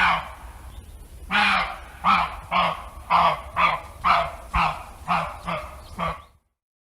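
Duck quacking: a run of about a dozen harsh quacks that come faster and grow fainter toward the end, then cut off suddenly.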